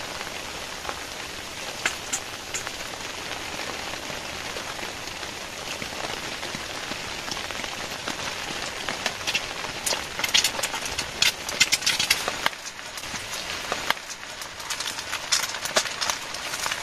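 Steady rain on a tent, with sharp clicks and scrapes of a utensil in a steel pan where eggs are being cooked, in two bursts starting about ten seconds in.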